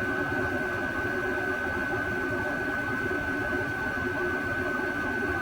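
A Chinese diesel air heater and its fans running steadily: a constant whir with a steady high-pitched whine throughout.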